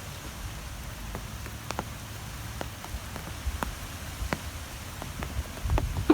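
Wind blowing with a low, uneven rumble that swells near the end, over a faint hiss, with scattered light ticks a few times a second.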